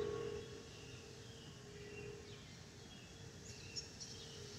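Airbus A320 passing overhead with its fuel over-pressure protector (FOPP) whistle: a faint steady single-pitched whine that swells and fades over a low jet rumble. Birds chirp over it in the second half.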